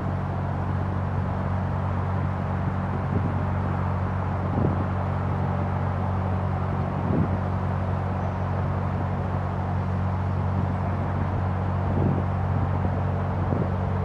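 Narrowboat diesel engine running steadily at cruising speed, a low even drone, with a few faint knocks.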